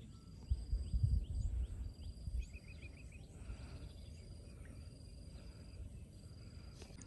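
Outdoor natural ambience: a steady high insect-like tone that breaks off now and then, short falling bird chirps, and a low rumble that is loudest in the first two seconds or so.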